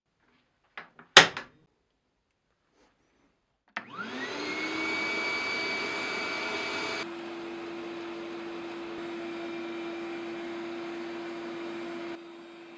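A sharp knock about a second in, then a power tool's electric motor switches on, its whine rising quickly to speed about four seconds in, and runs steadily, its tone shifting a little about halfway through.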